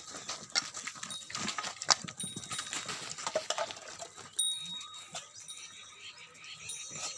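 Jamnapari goat kids moving about, with many short clicks and knocks, the loudest about two seconds in.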